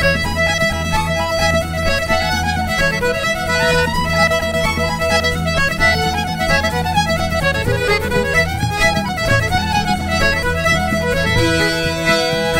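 Irish traditional band playing a tune live, the fiddle carrying a quick run of melody over a steady low backing. Near the end the low backing drops away and a few held notes come in.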